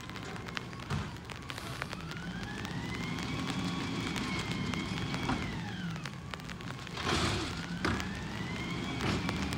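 Peterbilt 320 garbage truck's engine revving for its hydraulics, with a whine that rises, holds, falls about six seconds in and rises again near the end. A short hiss about seven seconds in.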